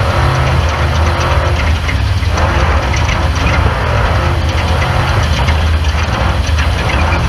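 Off-road race car's engine running loudly and steadily, with the low drone shifting slightly about two seconds in, over a dense clatter of rattles and knocks from the vehicle.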